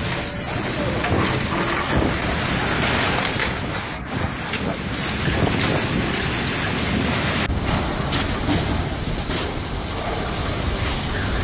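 Violent storm wind blasting the microphone with heavy driving rain, a dense rushing noise that surges and eases. About seven and a half seconds in it cuts to another recording of the same kind of windstorm.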